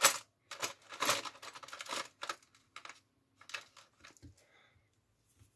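Small plastic parts clicking and rattling as they are handled, likely the model dozer's plastic link track being picked up. The clicks come thickly at first, then thin out and stop.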